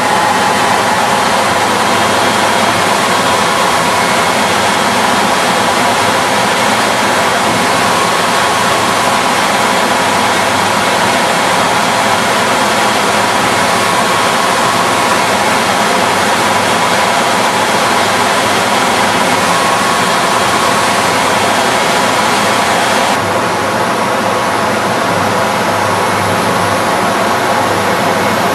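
Rebuilt 32-inch Escher Wyss P-5 two-stage pusher centrifuge with a 316 stainless steel basket, running: a loud, steady mechanical rush of noise with a few faint steady tones in it. The higher hiss drops a little near the end.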